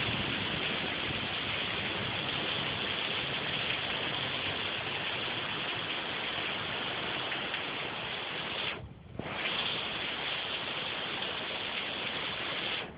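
Heavy rain pouring down in a steady, dense hiss, with a brief dip about nine seconds in.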